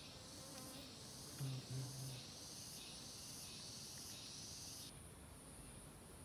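Faint buzzing of honey bees crowded at their nest opening in a hollow tree trunk, with two short, louder low buzzes about a second and a half in. A steady high insect drone in the background cuts off suddenly about five seconds in.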